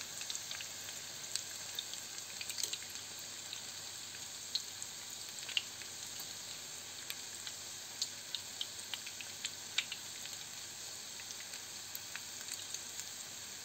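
Batter-dipped lavash pastries shallow-frying in hot vegetable oil in a skillet: a steady sizzle with scattered sharp pops and crackles.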